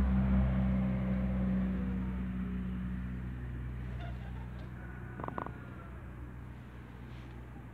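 A steady engine drone that slowly fades away, with a brief high squeak about five seconds in.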